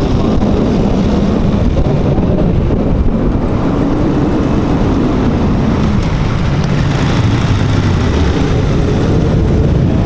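Steady loud rush of wind and road noise from a moving vehicle, with the engines of small underbone motorcycles riding alongside.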